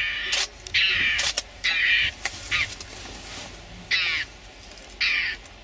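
Mongoose giving a series of short, harsh, raspy alarm calls, about six or seven in irregular succession, at lions standing over it.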